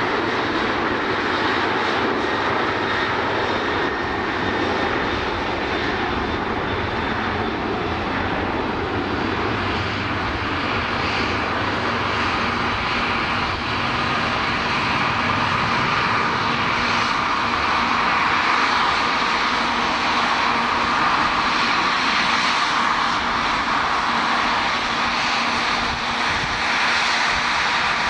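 Airliner engines running: a steady, unbroken rush of noise with a faint whine through it.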